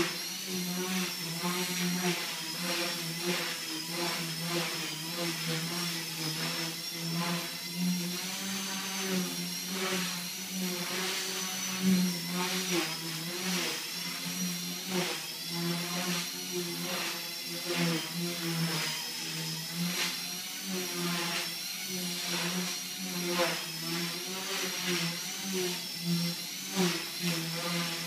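Axe 100 SS micro RC helicopter in flight: its brushless motor and spinning rotors give a steady whine that wavers slightly in pitch and swells briefly now and then as it is flown.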